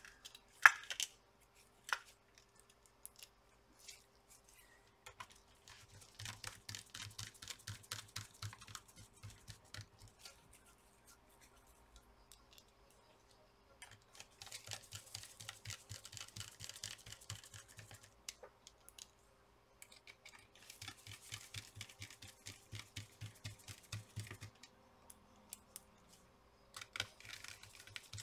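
Small screws being driven into a laptop's display hinges with a precision screwdriver: several runs of quick, light clicking a few seconds long, one per screw, with quiet gaps between. A sharp plastic click sounds just under a second in as a screw is taken from a plastic parts box.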